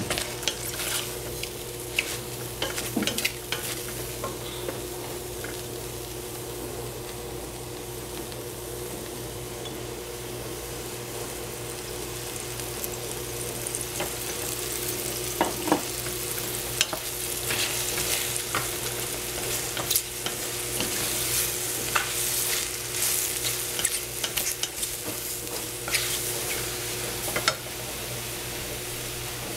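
Wooden spatula stirring sliced shiitake mushrooms in a stainless steel saucepan, with scattered knocks and scrapes against the pan that come more often in the second half. Under it runs a steady sizzling hiss of the mushrooms frying, over a low steady hum.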